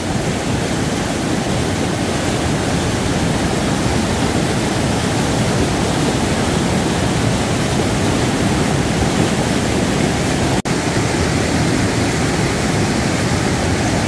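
Fast mountain stream rushing and churning in white water over and around boulders, a loud steady wash of water. The stream is running high and strong after much water. The sound drops out for a split second about ten and a half seconds in.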